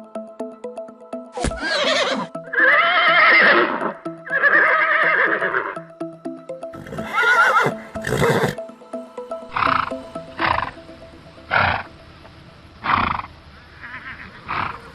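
Horses neighing: four long, quavering whinnies one after another in the first half, then five short calls spaced about a second apart.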